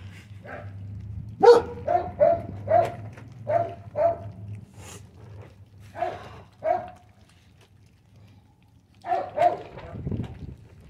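Four-week-old American bully puppies giving short, high-pitched yips and barks: a quick run of about six, then two pairs after pauses.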